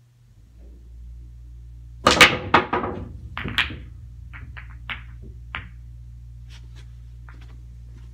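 Pool break shot: the cue strikes the cue ball and it smashes into the racked balls with a loud burst of sharp clacks about two seconds in, followed by scattered ball-on-ball clicks and cushion knocks that thin out over the next few seconds. A low steady hum runs underneath.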